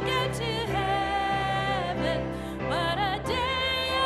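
A woman singing a solo with instrumental accompaniment, holding long notes, some of them with vibrato.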